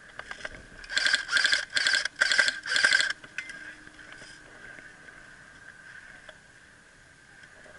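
Airsoft gun firing five short full-auto bursts in quick succession, a rapid mechanical rattle, starting about a second in. Fainter clicks follow.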